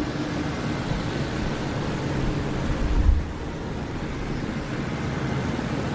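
Steady rumbling background noise with a dull low thump about three seconds in.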